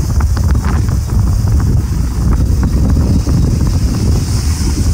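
Steady, loud wind buffeting the microphone on a Bajaj Pulsar 220 motorcycle riding at speed, with the bike's running and road noise underneath.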